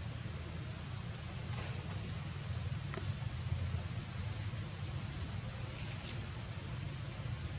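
Steady insect chorus, a thin high whine that holds unchanged throughout, over a steady low rumble.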